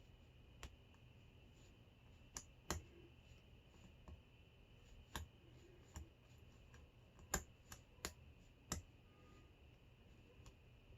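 A lock pick and tension wrench working the pin tumblers of a small Hurd padlock: about ten faint, irregular metallic clicks as the pins are lifted and set, the sharpest about seven to nine seconds in.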